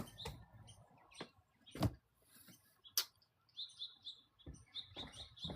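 Scattered knocks and footfalls as a person walks around a table, the two loudest about two and three seconds in, with a run of short faint high chirps in the second half.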